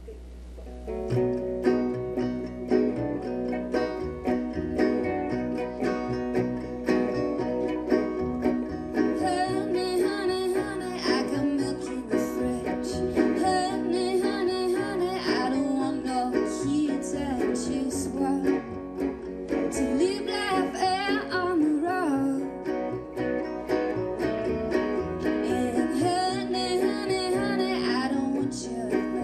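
A small band playing live, starting about a second in: electric guitar, resonator guitar and plucked upright bass, with a woman singing from about nine seconds in.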